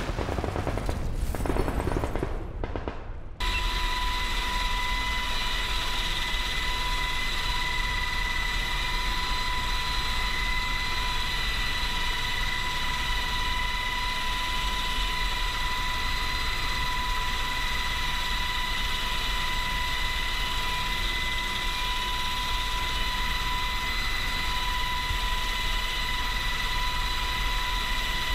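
A short burst of gunfire-like sound effects under a title logo. It cuts off about three seconds in, and from then on comes the steady noise inside the cabin of an HH-60 Pave Hawk helicopter in flight with its door open: a constant rumble with a steady high whine over it.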